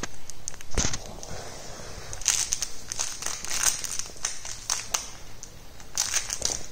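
A rattling plush toy shaken, bitten and kicked by a Devon Rex kitten, giving irregular bursts of rattling and crinkling, in busy clusters around two and a half seconds in and again near the end. A dull thump about a second in.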